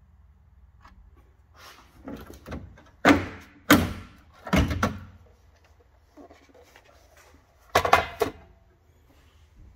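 A series of loud knocks and clunks, as of car body or interior parts being handled and knocked: a quick run of them in the first half, then another cluster near the end.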